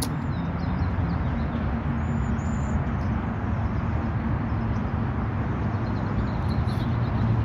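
Steady low rumble and hiss of outdoor background noise, with a few faint high chirps about two to three seconds in.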